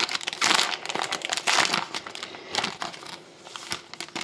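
Foil wrapper of a Panini Rookie Anthology hockey card pack being torn open and crinkling, loudest in the first couple of seconds. It gives way to fainter rustles and clicks as the cards are slid out of the pack.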